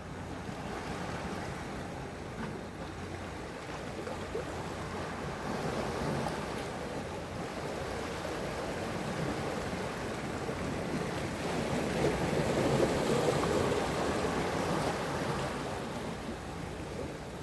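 Sea waves washing ashore: a steady wash of surf that swells to its loudest about twelve seconds in, then eases off.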